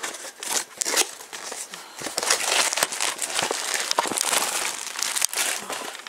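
Cardboard toy box being opened by hand: rustling, crinkling and scraping of the flaps and packing, with small knocks as the box is handled, busier from about two seconds in.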